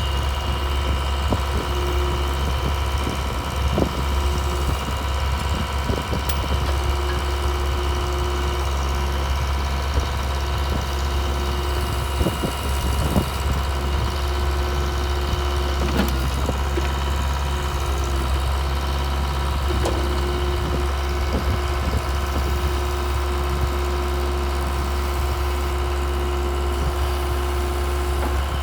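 Mitsubishi diesel engine of a Case DH4B trencher running steadily, with a few short knocks and clicks over the top.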